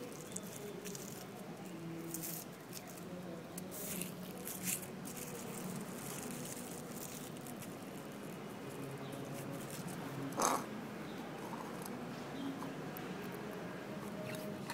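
Quiet outdoor background with scattered small clicks and rustles as a cat eats out of a styrofoam takeaway food box, and one brief louder sound about ten seconds in.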